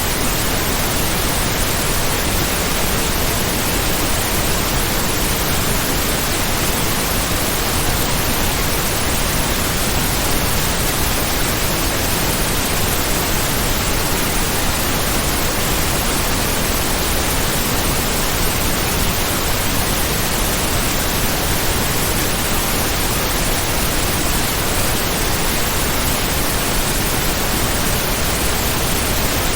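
Heavy-rain sound effect: a steady, even rushing hiss with no separate drops and no changes.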